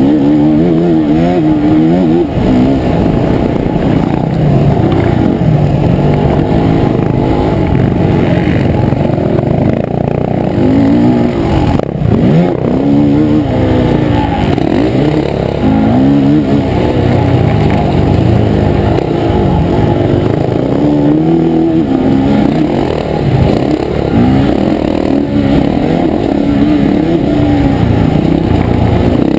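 Dirt bike engine heard from on board the bike, revving up and falling back again and again as it accelerates, shifts and slows through the corners of a motocross track. The sound is muffled, with little treble.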